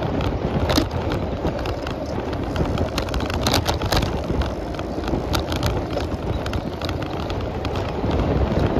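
A bicycle rolling along a paved road, with a steady low rush of wind and tyre noise and scattered sharp clicks and rattles from the bike, a small cluster of them about three and a half seconds in.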